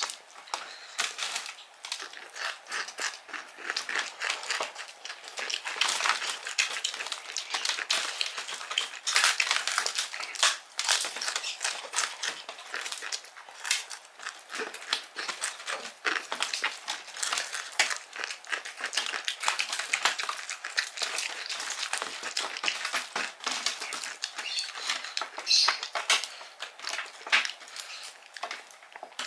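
Close-miked chewing and crunching of fried chicken with crispy kremes crumbs, a dense, irregular stream of wet clicks and crackles.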